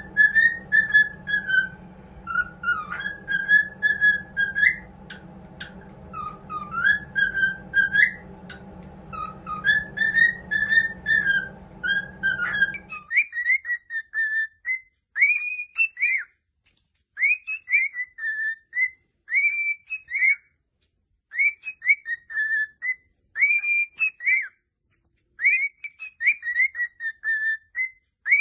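Cockatiels whistling: short whistled phrases of rising and falling notes, repeated over and over. A low steady hum underneath cuts off about halfway through, after which the whistles come with short gaps of quiet between them.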